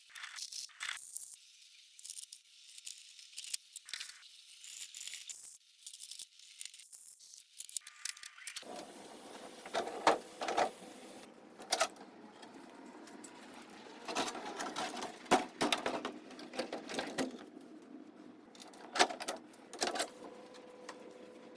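Handling and fitting of 3D-printed plastic enclosure parts: irregular plastic clicks, knocks and rattles. The sound is thin at first and becomes fuller about eight to nine seconds in, with sharper knocks.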